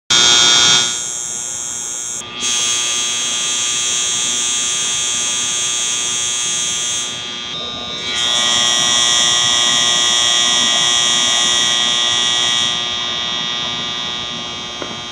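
Electric furnace contactor humming loudly, a steady harsh buzz with many overtones whose tone shifts a few times: the sign of a failing contactor.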